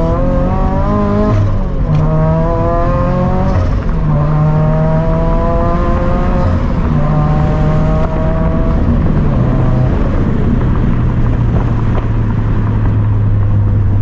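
Turbocharged 2013 Scion FR-S flat-four engine heard from inside the cabin, accelerating through the gears: the engine note climbs, drops at each upshift and climbs again several times. About ten seconds in it settles into a steady low drone while cruising.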